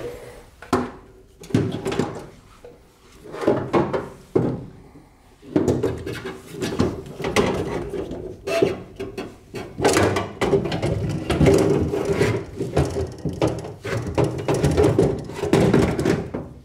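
Repeated clunks, knocks and scraping as a window track is handled and fitted into a truck door's sheet-metal inner panel. A few scattered knocks at first, then near-continuous scraping and clattering from about five seconds in.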